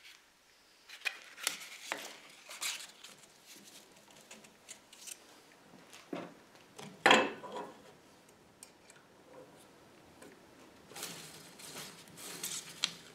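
Hand-handling noises on a belt grinder as an abrasive belt is fitted over its wheels and a metal block is set in place: scattered clicks, light metallic clinks and rustling, with one sharp knock about seven seconds in and a busier patch of rustling near the end.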